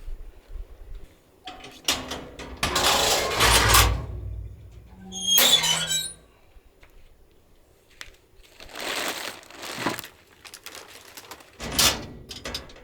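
Several bursts of rustling and handling noise, with a short clinking rattle of small hard objects about five and a half seconds in.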